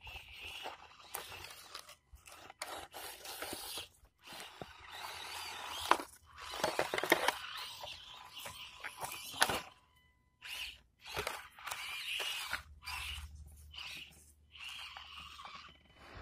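Small RC crawler truck driving over rough ground, its tyres and chassis crunching and scraping in irregular bursts, with a few sharper clicks.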